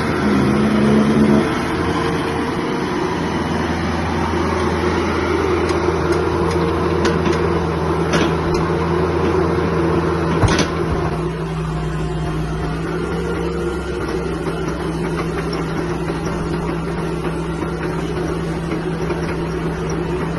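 Kubota mini excavator's diesel engine running steadily, its note shifting about a second and a half in and again about halfway, with a couple of sharp knocks near the middle.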